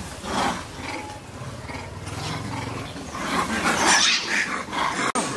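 Long-tailed macaques giving several harsh cries.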